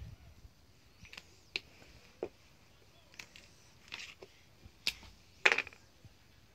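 Scattered light clicks and knocks of plastic whiteboard markers and their caps being picked up, knocked together and handled, the loudest knock about a second before the end.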